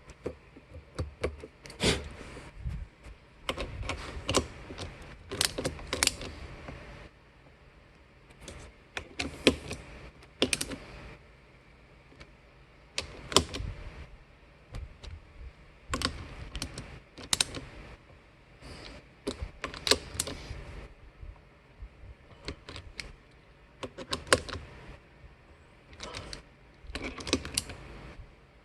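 Irregular clicks and taps of hard plastic parts of a water softener control valve being handled and fitted together during reassembly, coming in bunches with short pauses between them.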